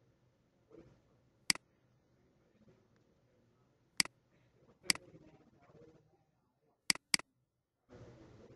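Computer mouse button clicking: single clicks about a second and a half in, at four seconds and at five seconds, then a quick double click near seven seconds. A faint steady hiss comes in near the end.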